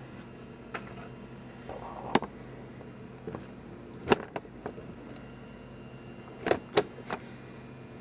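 Scattered sharp clicks and knocks of objects and the camera being handled at a workbench, the loudest a little past halfway and two close together near the end, over a steady low hum.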